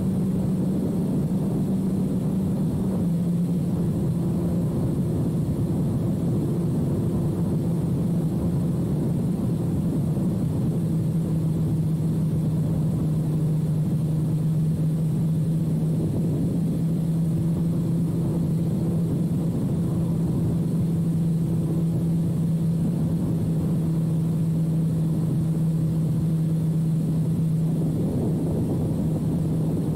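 2006 Suzuki GSX-R1000's inline-four engine running through a full carbon/titanium Yoshimura exhaust while cruising at steady revs. Its pitch drops slightly about three seconds in, then holds steady.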